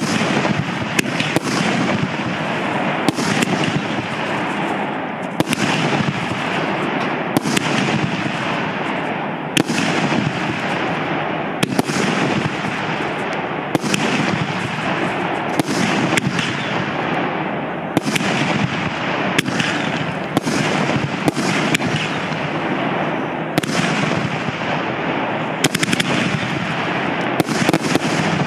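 A 25-shot, 50 mm consumer firework battery (Piromax PXB3925 'No Limits') firing shot after shot, roughly one every second. Each shot is a sharp bang, and a steady rushing noise runs between the shots.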